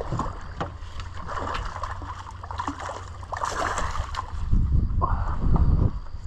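A hooked trout splashing at the water's surface as it is scooped into a landing net, with the densest splashing about three and a half seconds in. Low thumps follow as the net is hauled up.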